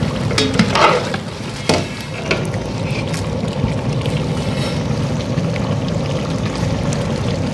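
A long perforated metal ladle scraping and knocking against a large metal cooking pot as thick mutton chukka gravy is stirred, a few sharp scrapes in the first couple of seconds. After that there is a steady low rumble from the stove under the simmering pot.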